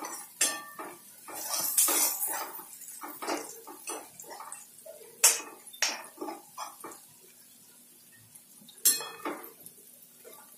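Metal spoon scraping and clinking against a metal pan while stirring sliced onions, in irregular strokes with a few sharper clinks. There is a quieter pause about seven seconds in before one more sharp clink.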